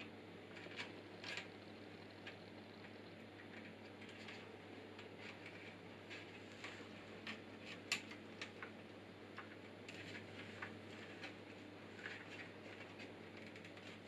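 Faint, scattered small ticks and taps of cables being handled and tucked inside a PC case, the sharpest tick about eight seconds in, over a low steady hum.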